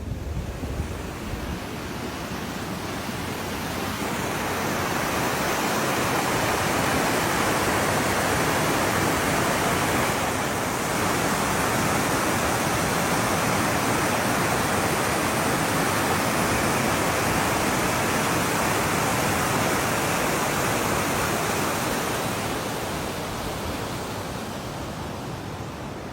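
Steady rushing storm noise of wind, rain or water, with no distinct events in it. It swells up over the first few seconds and eases off near the end.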